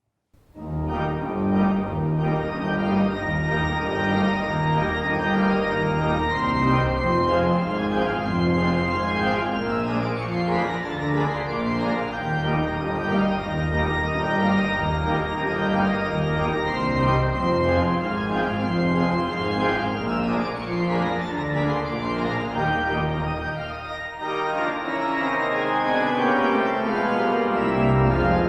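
Organ playing a closing voluntary: sustained chords over a moving bass line, with the bass dropping out briefly a few seconds before the end.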